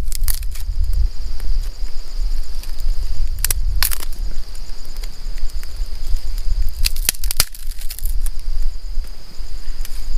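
Dry sticks snapping as they are broken by hand, in short groups of sharp cracks every few seconds. Under them runs a steady, high-pitched insect drone.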